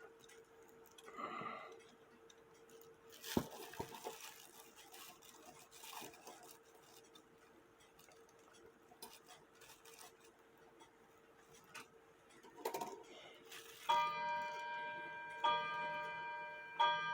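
Faint clicks and taps of small clock parts being handled, then about fourteen seconds in a clock starts striking: ringing metallic strokes about every second and a half, each ringing on.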